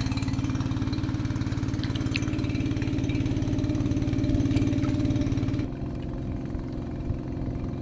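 Small engine at the back of a bamboo raft running steadily. About five and a half seconds in, the sound drops suddenly to a quieter, duller engine drone.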